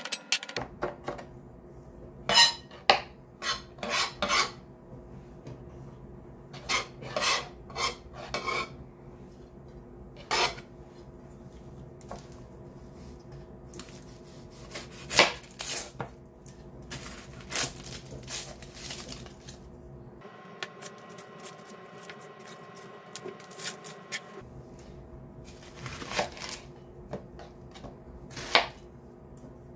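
Chef's knife knocking and scraping on a plastic cutting board as garlic is minced and an onion is trimmed and cut: irregular sharp knocks, some in quick runs of several strokes.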